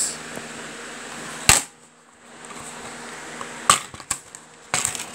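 A plastic DVD case being handled and opened: one sharp click about a second and a half in, then a run of clicks and knocks of the case near the end, over the steady hum of a running fan.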